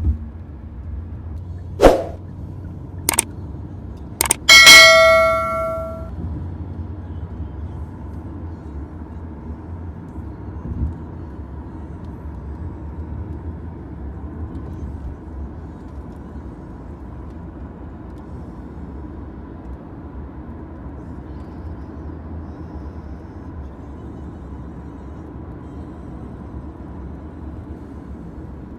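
Steady low engine and road rumble inside a moving taxi. A couple of seconds in come three sharp clicks, then one loud bell-like metallic ding that rings out for about a second and a half.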